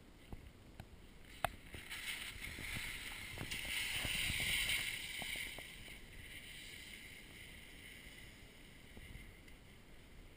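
Skis sliding and scraping over firm snow as the skier sets off downhill, after a few sharp clicks. The hiss swells for a few seconds, then eases to a softer sliding sound.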